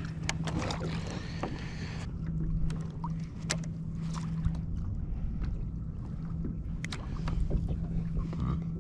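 Water washing against a kayak hull for the first couple of seconds, then small scattered clicks and knocks from handling a baitcasting rod and reel, over a low steady hum.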